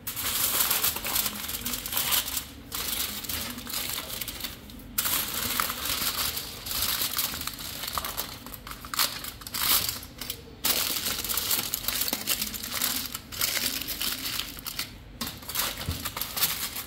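Aluminium foil crinkling and crackling as hands fold and press it shut, in uneven spells with brief pauses between them.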